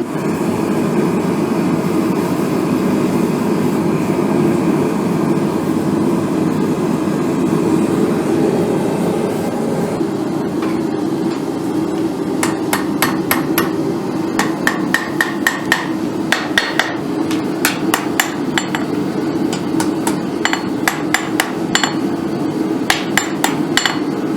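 Hammer striking the hot end of a 5160 spring-steel sword tang on an anvil to bend it, in quick ringing blows of about two or three a second that begin about halfway through. A lit forge runs with a steady noise underneath.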